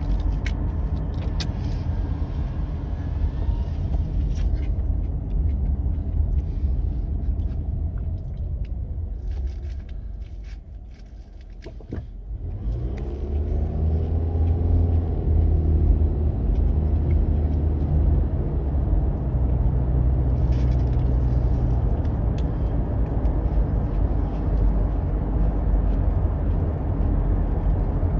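Car engine and tyre noise from inside the cabin while driving. The noise dies down about ten seconds in as the car slows, then the engine climbs in pitch as it accelerates away and settles into a steady cruise.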